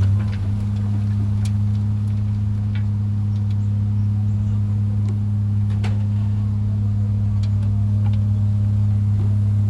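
A heavy machine's diesel engine running at a steady speed, a constant low drone that holds one pitch throughout, with scattered light clicks over it.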